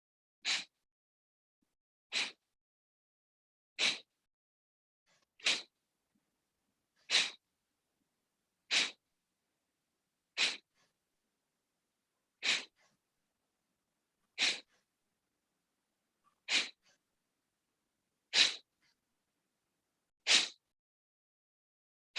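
Kapalbhati (skull shining breath): short, forceful exhalations through the nose at a slow pace, one sharp puff about every two seconds, about a dozen in all.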